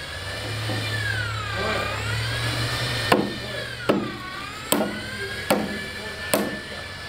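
A club hammer striking the steel track of a tracked vehicle during repadding: five sharp blows, about one every 0.8 seconds, starting about three seconds in. Underneath runs a steady tone that slowly dips and rises in pitch.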